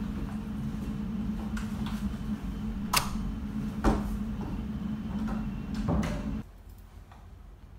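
Sharp clicks and knocks of an office door being worked, the loudest about three and four seconds in, over a steady low hum. The hum cuts off suddenly a little after six seconds, leaving a much quieter tail.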